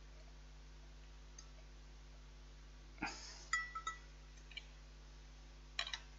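A few sharp clinks of a kitchen utensil against a mixing bowl, with a short ringing tone: a cluster about three seconds in and another near the end, with low room tone before them.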